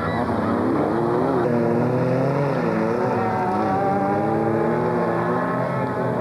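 Engines of several folkrace cars revving hard on a dirt track, the pitch repeatedly climbing and dropping as the drivers accelerate and lift off; the sound changes abruptly about a second and a half in.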